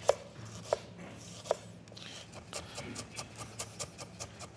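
Chef's knife slicing fresh ginger on a wooden cutting board: three separate knife strokes in the first two seconds, then quick, even chopping at about five strokes a second as the ginger is cut into fine strips.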